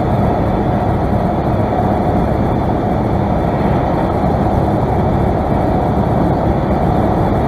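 Steady drone of engine and rushing air inside the cockpit of a light single-engine airplane, with the engine throttled back for a power-off approach.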